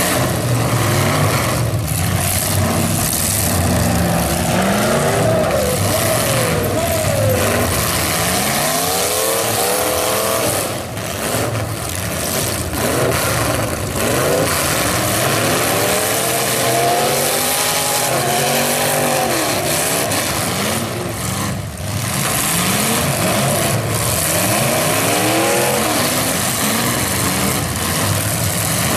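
Several stock demolition derby cars' engines revving hard at once, their pitches rising and falling over one another, loud and continuous.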